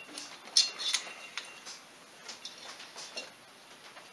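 Light metallic clicks and clinks from a cylinder head and the cam-chain wire being handled and fitted onto an ATV engine, a cluster of the sharpest about half a second to a second in, then a few scattered ticks.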